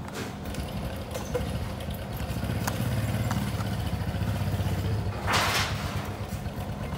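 A steady low engine hum, as of a motor idling, with one short scraping burst about five seconds in as a disposable razor is drawn over wet raw pig skin.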